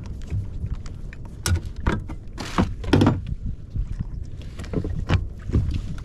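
A kayak on the water: scattered knocks and clicks on the hull and gear, with two louder splashing swishes about two and a half seconds in, over a steady low rumble.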